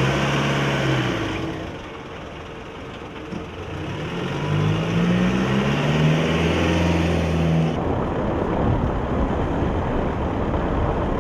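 Armoured police vehicle's engine pulling away, its pitch rising as it accelerates. About eight seconds in it cuts to the steady road and wind rush of a moving car.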